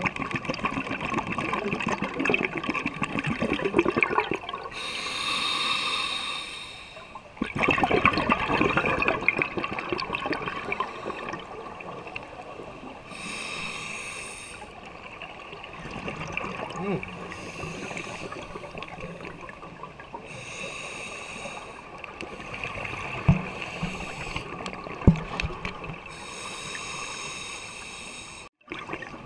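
Scuba diver breathing through a regulator underwater, in four slow cycles: a hissing inhale of about two seconds, then a longer rumble of exhaled bubbles. Two sharp knocks come near the end.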